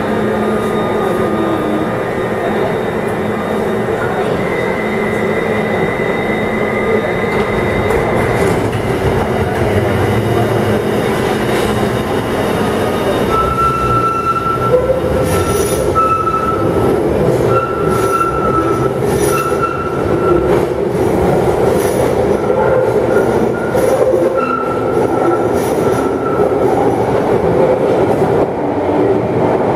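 London Underground 1972 Stock tube train in the platform tunnel, a steady rumble that grows as it pulls out, with high wheel squeals against the rail coming and going over the second half.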